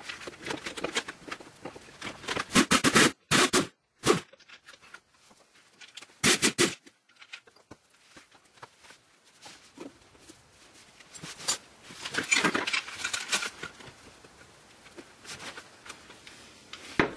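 Socket extensions and tools clattering and scraping against the transmission under a car as hands work up to the top bolts, in a few short bursts of rapid knocking and clicking.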